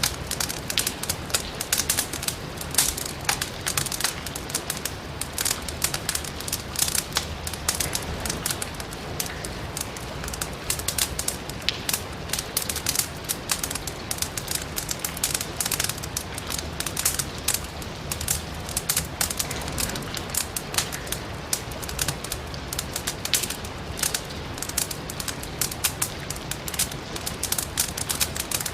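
Firewood crackling in a fireplace: a dense, irregular run of sharp snaps and pops over a steady hiss of rain.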